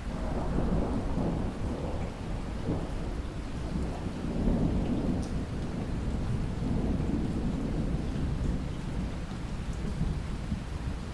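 Steady rainfall, with a deep low rumble that swells in at the start and rolls on underneath the rain, rising and falling.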